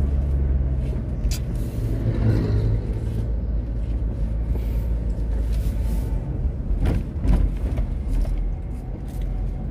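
A vehicle's engine and tyre noise heard from inside the cabin while it drives along: a steady low rumble with a few short knocks and rattles.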